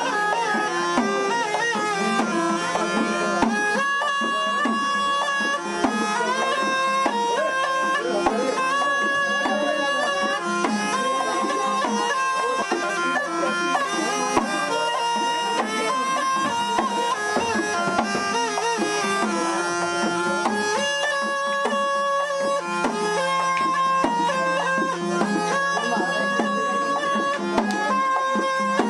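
Snake charmer's pungi (been) playing a winding, reedy melody over a steady unbroken drone.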